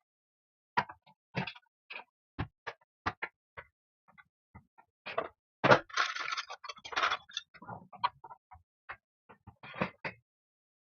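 Irregular plastic clicks and knocks from hands handling a router's plastic housing, with a longer scraping rustle about halfway through.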